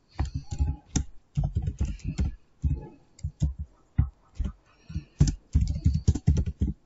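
Typing on a computer keyboard: quick, irregular keystrokes in short runs with brief pauses between them.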